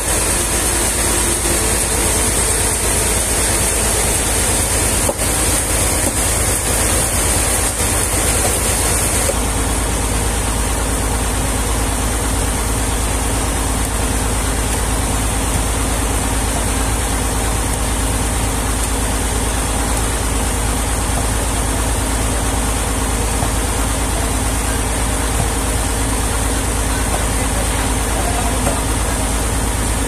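Sawmill machinery running steadily, an even engine-like hum, with a high hiss that drops away about nine seconds in and a single sharp click about five seconds in.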